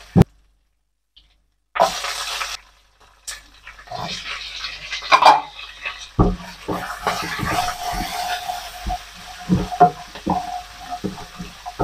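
Spatula stirring and tossing sliced onions with peanuts, cashews and chillies in hot oil in a wok, the oil sizzling. From about halfway, the spatula knocks and scrapes against the pan every half second or so, over a steady faint hum.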